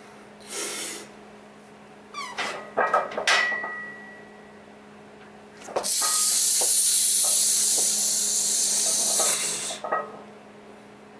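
A steady spraying hiss starts abruptly about halfway through and lasts about four seconds before cutting off. Before it come a brief rustle and a few short clicks and knocks, one with a short ring.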